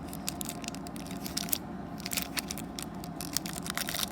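Pokémon card packaging and cards being handled: irregular crinkling and scraping clicks of foil and plastic over a steady low hum.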